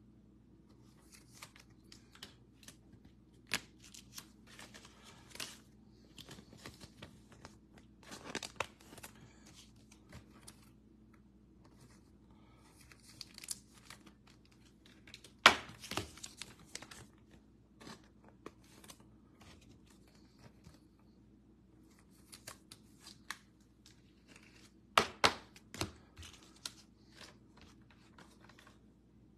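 Plastic wrapping on trading-card packs being torn and crinkled by hand, with scattered rustles and a few sharper snaps, the loudest about halfway through.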